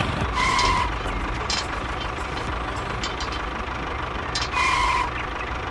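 Vehicle engine running steadily, with two short beeps about four seconds apart.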